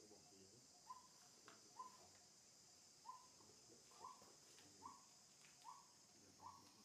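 Faint ambience: a bird repeating a short call about once a second, seven times, over a steady high-pitched insect drone.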